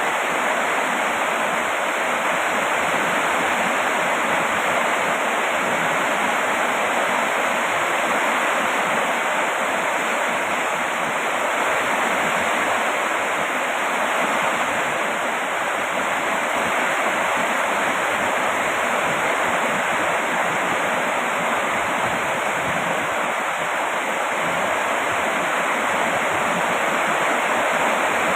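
Steady heavy rain: a dense, even hiss with no single drops or other sounds standing out.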